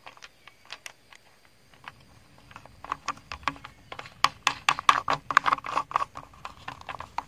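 Plastic bump knob being screwed back onto a string trimmer's spool head by hand: irregular plastic clicks and ticks, sparse at first, then coming thick and fast from about three seconds in.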